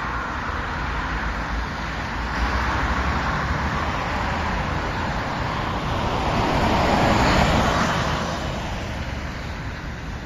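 Road traffic on a wide city street: a steady wash of car engine and tyre noise, swelling to its loudest about seven seconds in as a vehicle passes close, then easing off.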